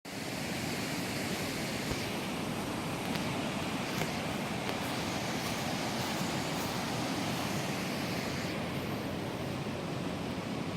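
Steady outdoor rushing noise, even and unbroken, with a few faint ticks now and then.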